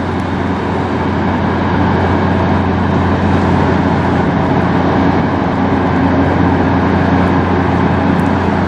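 Pusher tug's diesel engines running steadily as it passes close by: a deep, even drone that grows slightly louder over the first couple of seconds, then holds.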